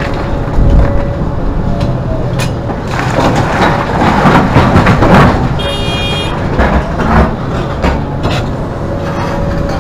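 Hidromek 390 excavator working, its Isuzu six-cylinder diesel engine running under load with a steady hydraulic whine and irregular clanks of the machine and bucket. A brief high-pitched squeal comes about six seconds in.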